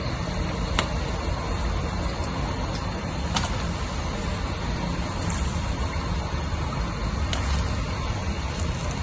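Batter-coated nian gao deep-frying in hot oil in a wok: a steady sizzle over a low, even rumble, with three sharp clicks.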